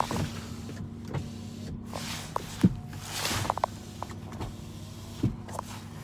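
2012 Dodge Journey's power window motor running the door glass, with several sharp clicks in between. It is being worked from a newly replaced door window switch, which works.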